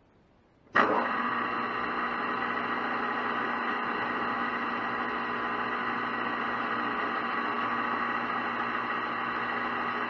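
Metal lathe running, a steady machine whine with several fixed pitches over a mechanical hum; it comes in abruptly about a second in and holds steady.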